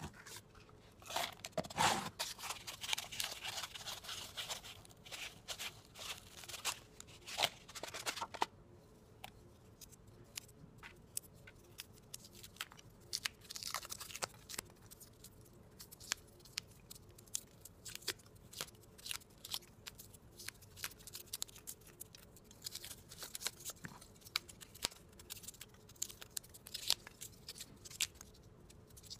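Expanded-polystyrene cup moulds being cracked and peeled off set concrete castings: a dense crackling crunch of foam breaking for the first eight seconds or so, then scattered sharp snaps and tearing as shards come away.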